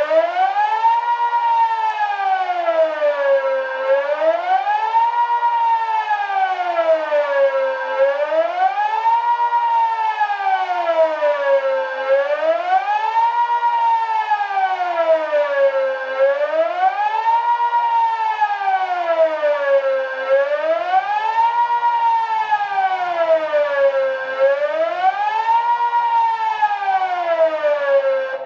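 Civil defence siren sounding the Swiss general alarm: a loud wailing tone that rises and falls steadily, one full swing about every four seconds.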